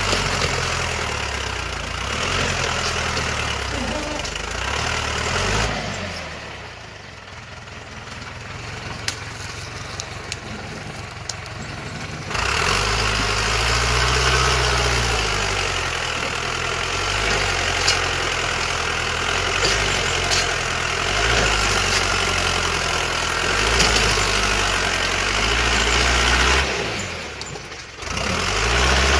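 A vehicle engine running, its pitch slowly rising and falling, with a quieter stretch of several seconds early on and a short dip near the end.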